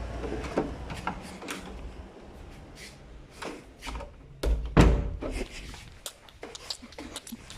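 Scattered clicks and knocks, with one heavy thump about halfway through.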